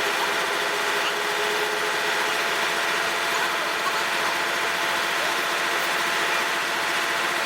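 An engine running steadily at a constant speed, an even, unchanging machine noise.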